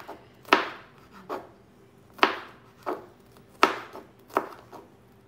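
Chef's knife finely chopping jalapeño on a cutting board: about seven sharp knocks of the blade on the board, unevenly spaced.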